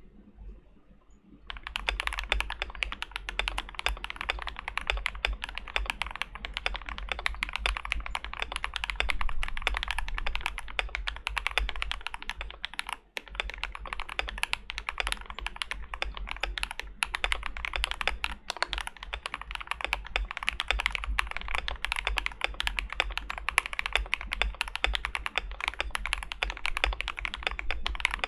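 Fast continuous typing on a KBD75 V3.1 mechanical keyboard with a brass plate and lubed KTT Rose linear switches. The keystrokes start about a second and a half in, with a brief pause about halfway through.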